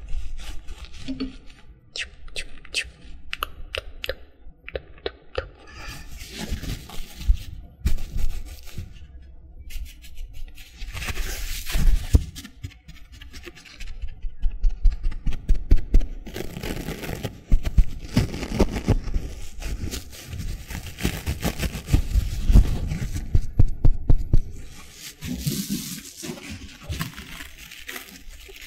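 Two sponges being squeezed, scrunched and rubbed close to the microphone as an ASMR trigger, with a run of crisp clicks and taps in the first few seconds.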